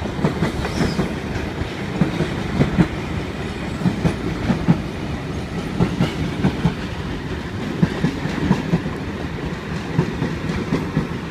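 A Sydney Trains V-set double-deck electric train running past at close range: a steady rumble with irregular clacks as its wheels pass over rail joints.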